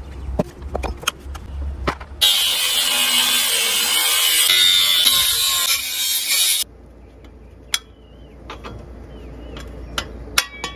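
Metal clicks, taps and ratcheting of hand tools working on a Razor MX500 frame during teardown. About two seconds in, these are broken by roughly four seconds of loud, harsh hissing noise that starts and stops abruptly.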